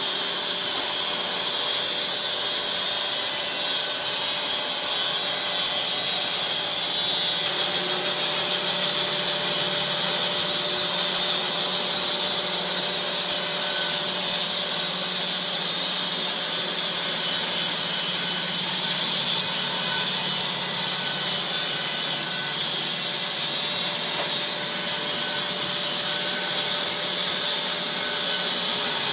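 Puma EA bandsaw mill sawing wood: a loud, steady hiss of the band blade cutting, with a low steady hum from the mill underneath.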